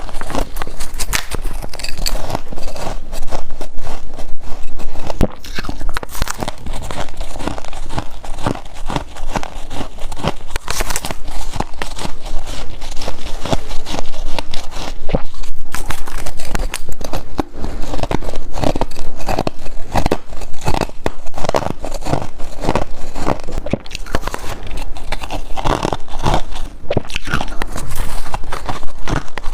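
Close-up biting and chewing of white ice: a steady run of crisp, crackly crunches, bite after bite.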